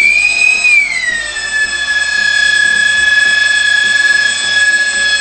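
Brushless electric motors of a Freewing B-17 RC model spinning their propellers on the bench: a loud high whine that drops in pitch about a second in, then holds steady. They run smoothly.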